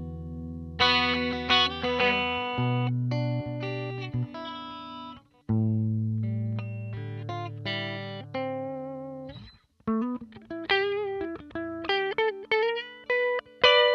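1977 Aria Pro II electric guitar played clean, with no effects, through a Roland JC-120 clean model on a Fender GT100 modeling amplifier. It plays ringing chords and single-note riffs, breaks off twice briefly, and bends notes in the last few seconds. The signal runs through 29 feet of cable on a non-isolated power supply.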